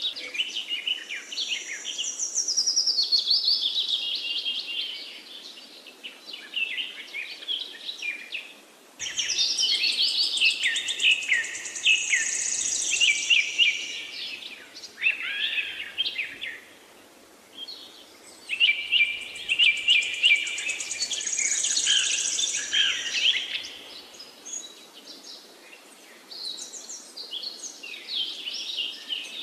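Birds chirping and calling in a busy, rapid chorus, coming in bouts of several seconds with short lulls between.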